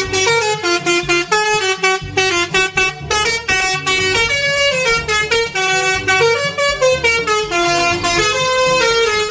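Telolet horn on a coach bus: a set of horns playing a fast jingle of short notes that jump up and down in pitch, repeated over and over, cutting off suddenly at the end.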